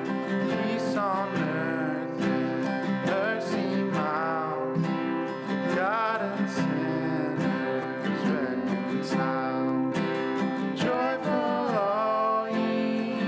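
Acoustic guitar music: steady strummed chords with a melody line gliding and wavering above them.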